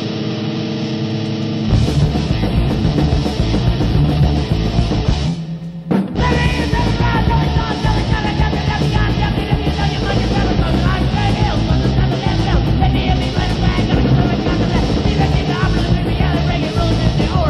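Second-wave hardcore punk band playing on a 1990 demo tape recording: a held, ringing chord, then the full band of guitar, bass and drums comes in about two seconds in. The band stops briefly around five seconds in, then crashes back in with shouted vocals.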